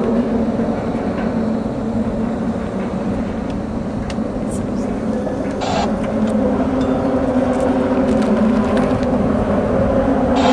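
Traffic crossing the Mackinac Bridge overhead, the tyres humming on the open steel grating of the deck: a steady drone like a hive of angry hornets.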